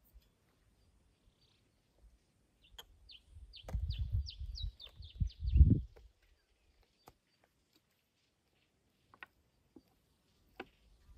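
A bird gives a quick run of about ten short, high chirps, each falling in pitch, about three seconds in. It sounds over a loud, low rumbling noise, and a few faint clicks follow later.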